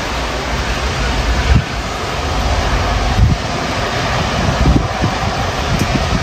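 Storm wind blowing hard across the microphone: a steady rushing noise with several irregular low buffeting gusts.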